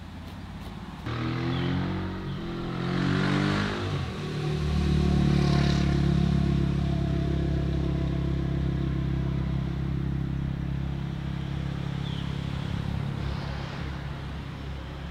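A motor vehicle's engine running, its pitch shifting for the first few seconds, then holding steady and fading near the end.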